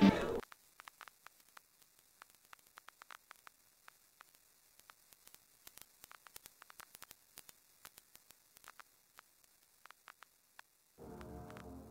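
Music cuts off just after the start, leaving the faint crackle and scattered clicks of a vinyl record's surface noise for about ten seconds. Quiet music comes in near the end.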